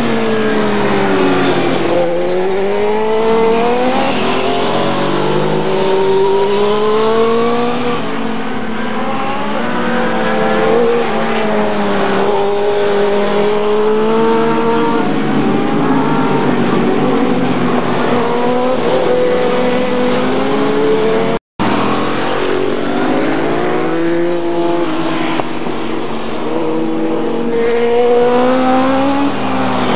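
Superbike racing motorcycles accelerating hard past the camera. Several engines overlap, each rising in pitch through a gear and then dropping at the shift. The sound cuts out for a split second about two-thirds of the way through.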